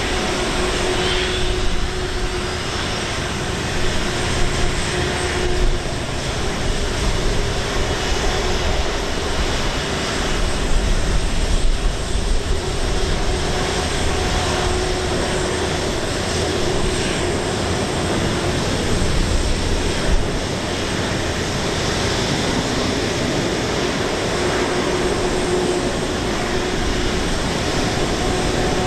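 Steady jet aircraft noise across an airport apron: a broad rumble with a constant whining tone over it.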